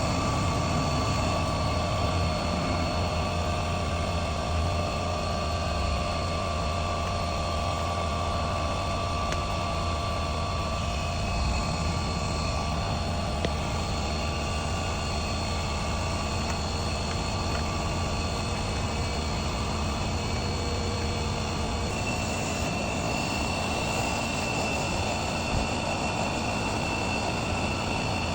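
Dryer vent cleaning equipment's motor running steadily: a continuous drone with a low hum and a high whine, with a new whining tone coming in about two-thirds of the way through.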